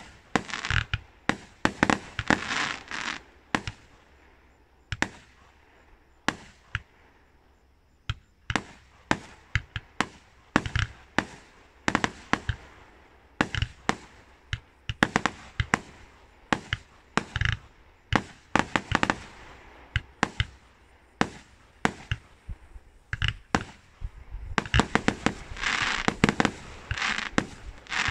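Fireworks display: a rapid run of sharp bangs as shells launch and burst, with a brief lull a few seconds in. Dense crackling follows the bursts near the start and again near the end.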